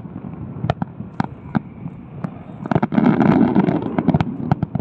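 Fireworks display: scattered sharp bangs of bursting shells, with a denser, louder flurry of bangs and crackle about three seconds in.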